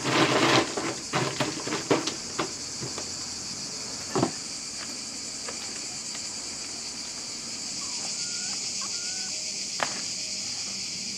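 Almonds in their hard shells clattering in a plastic crate as hands stir and spread them, over a steady high insect chorus that carries on alone after the first few seconds. A sharp knock comes near the end as a plastic crate is set down on concrete.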